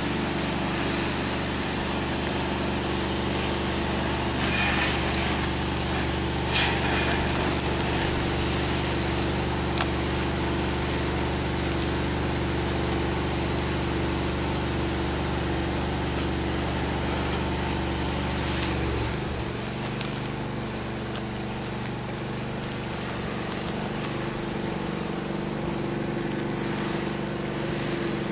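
Engine-driven pump of a roof-washing rig running steadily, with a hiss of spray over it. About two-thirds of the way through, the deep low rumble drops away and the engine note changes.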